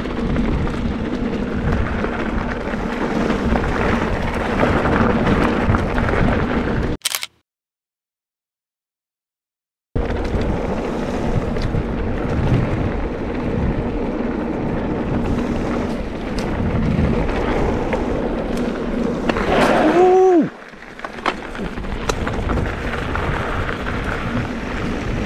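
Riding noise of a mountain bike on dry dirt singletrack: steady wind buffeting on the bike-mounted microphone mixed with tyre and trail rumble. It cuts to dead silence for about three seconds around a third of the way in, and a brief squeal falling sharply in pitch sounds near the end.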